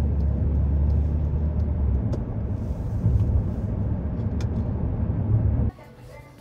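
Steady low rumble of road and engine noise inside a moving car's cabin. About five and a half seconds in it cuts off abruptly to quiet background music.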